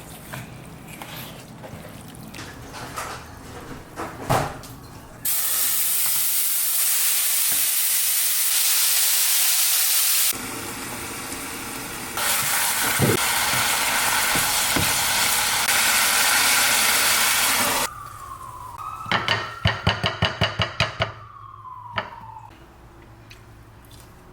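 Food frying and sizzling in a hot pan, in two long stretches that start and stop abruptly. Scattered light knocks come before them, and a quick run of clicks near the end.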